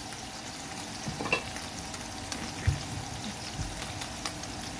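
Pork pieces and oil sizzling steadily in a frying pan, with a few short knocks and clicks as the contents are stirred.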